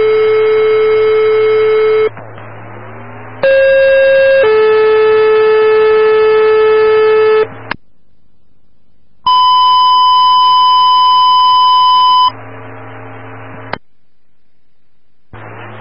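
Police dispatch alert tones over a scanner radio feed. A lower tone ends about two seconds in. A short higher tone then steps down to a lower tone held about three seconds, the two-tone page that alerts units before a broadcast. A single steady, higher alert tone follows for about three seconds. Radio hiss and squelch clicks sit between the tones.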